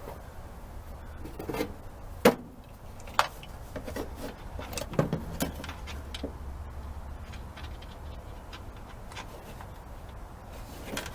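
Scattered clicks and knocks of tools and metal parts being handled, with two sharp knocks about two and three seconds in and a few more around the middle, over a low steady hum.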